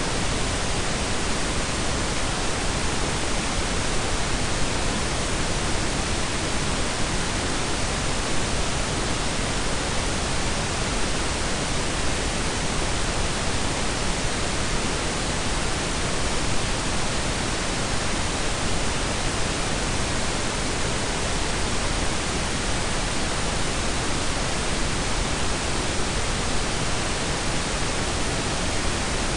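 Synthetic pink and brown noise blended, a steady, even hiss with a deep low rumble, unchanging throughout.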